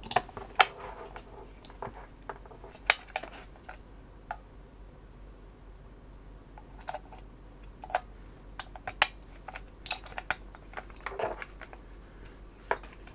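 Hard plastic clicks and knocks as mains plug adapters are handled and one is slid and snapped onto a plug-in power supply. The clicks come irregularly, a dozen or so, with the sharpest about half a second in.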